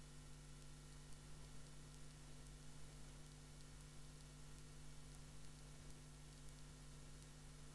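Near silence: a low steady hum under faint hiss.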